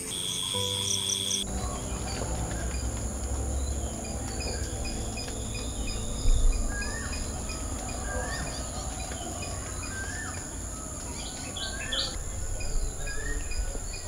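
Garden nature ambience: crickets chirping at first, then, after a sudden change about a second and a half in, a steady high insect drone with birds calling over and over in short rising-and-falling notes. A low rumble sits underneath, with one loud low thump about six seconds in.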